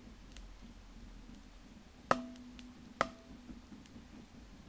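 Two sharp knocks about a second apart, each followed by a brief ringing tone, over a low background hum.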